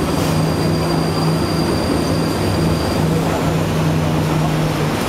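Studio tour tram running, a steady mechanical hum and rumble with a thin high whine that fades out about three seconds in.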